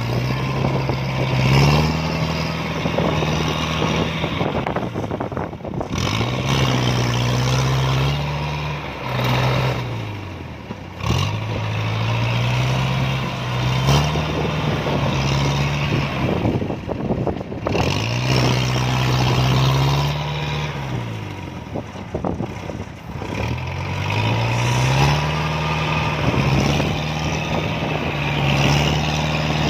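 Diesel engine of a tracked rice harvester or crawler tractor labouring in deep mud. It revs up, holds, then eases off, over and over, about five times.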